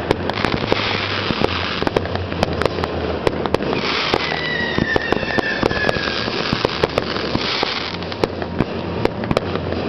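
Fireworks display: a rapid, irregular run of shell bursts and bangs with crackling, and a falling whistle about four seconds in.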